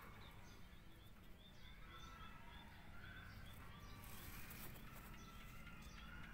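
Faint, high-pitched bird chirping: a quick run of short chirps, about three or four a second, over low background noise.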